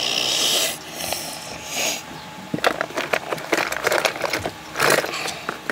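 Rustling and scraping handling noise at first, then a string of light clicks and knocks as objects are moved about against cardboard.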